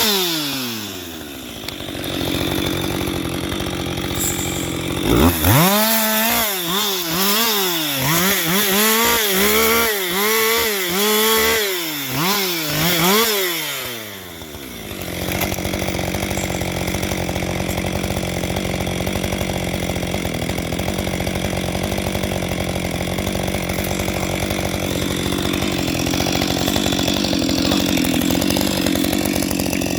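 Husqvarna 560XP two-stroke chainsaw. It revs down to idle, is blipped up and down repeatedly over several seconds, then runs at a steady speed for the second half.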